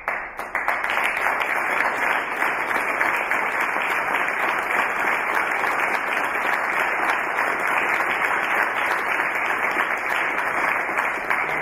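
Audience applauding: a long, even round of clapping.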